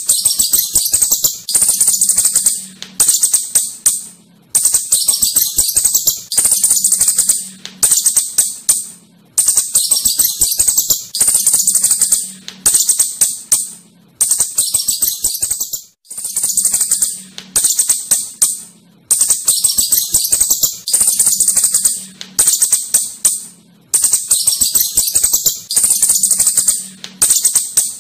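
Asian house shrew chattering: bursts of rapid, high-pitched clicking chirps, each a second or two long, repeating over and over with short gaps.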